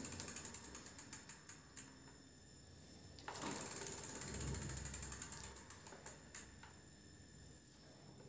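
Rear wheel with a 250 W geared hub motor spun by hand and left to coast, twice: its freewheel ratchet clicks rapidly, the clicks spacing out as the wheel slows. The second spin comes about three seconds in.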